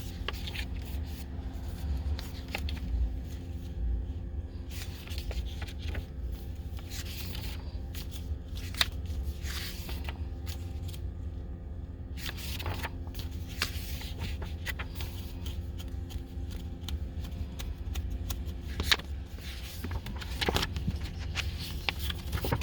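Steady low rumble of a car, heard from inside the cabin, with a faint steady hum and scattered small clicks and rustles of handling.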